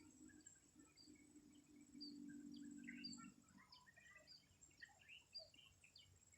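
Faint village morning chorus: many birds chirping and calling in short notes, one repeating a brief high chirp at a regular beat, over a steady high-pitched insect drone. A low hum runs under it for the first three seconds or so, then stops.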